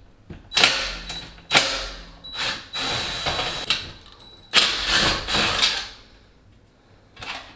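Screws being backed out of a dishwasher's toe kick panel with a cordless driver: short runs of motor whine, with knocks and clatter in between.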